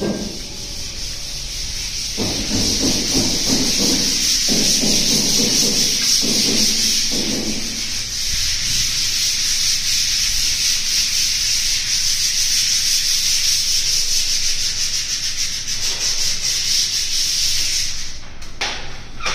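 Electric power sander running with a steady, hissing, scraping noise, rougher in spells in the first few seconds, then stopping abruptly near the end.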